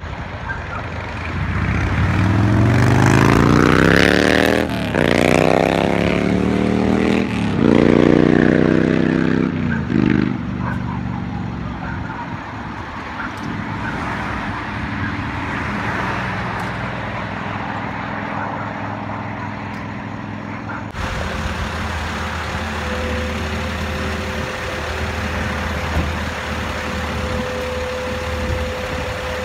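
Case backhoe loader's diesel engine revving up several times in the first ten seconds, its pitch climbing and dropping, then running steadily at lower speed. In the later part a steady whine sits over the engine while the backhoe digs.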